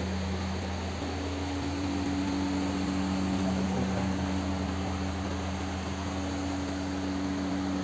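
Steady machine hum with an even hiss behind it.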